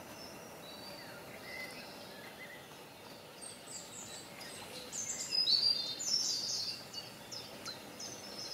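Small birds chirping and singing over a steady outdoor background hiss. The calls grow denser and louder from about halfway through.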